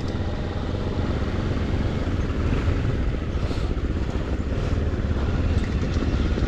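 Motorcycle running steadily as it is ridden along a rough off-road track, a continuous low rumble.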